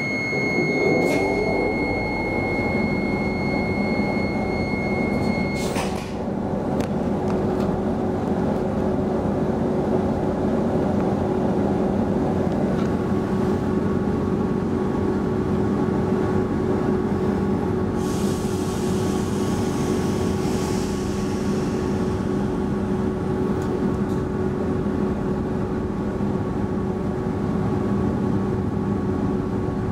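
Inside the carriage of an X10 electric commuter train: a steady high door-closing warning beep for about six seconds, ending in a knock as the doors shut. The train's steady hum and rumble follow as it starts to move off, with a higher hum joining about halfway through.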